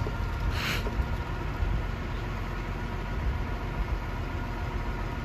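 Diesel engine of a truck-mounted crane running steadily while the hydraulic boom lifts a container, with a brief hiss about half a second in.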